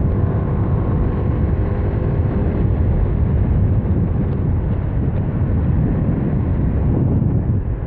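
Wind rushing over the microphone on a moving Honda Beat FI scooter, with its small single-cylinder engine running steadily underneath.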